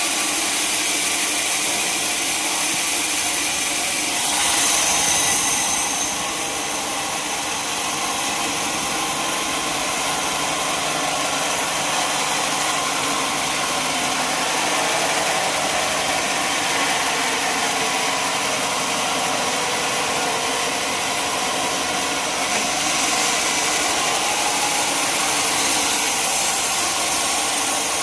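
Sawmill machinery running steadily with an engine note. It gets louder and brighter for a couple of seconds about four seconds in, and picks up again a little past twenty-two seconds.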